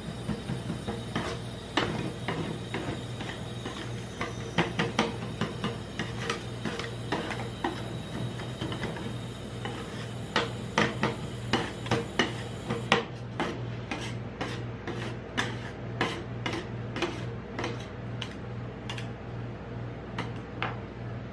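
Two metal spatulas chopping chocolate into ice cream base on a steel cold plate: irregular sharp clacks and scrapes of the blades striking the plate, coming fastest about halfway through, over a steady low hum.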